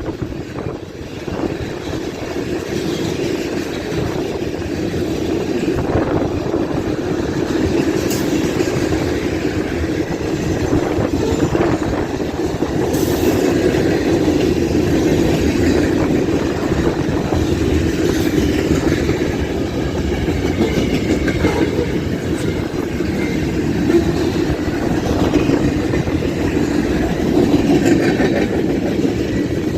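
Freight train cars rolling past: a steady rumble of wheels on the rails, with a few sharp clicks.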